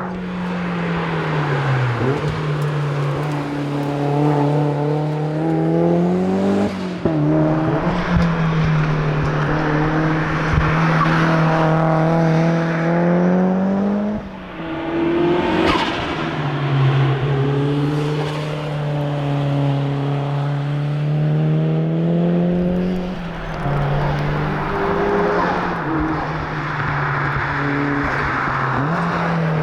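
Mazda MX-5 SE's turbocharged four-cylinder engine driven hard at rally pace, its note climbing steadily through the revs and dropping sharply at each gear change, about three times, over steady tyre and road noise.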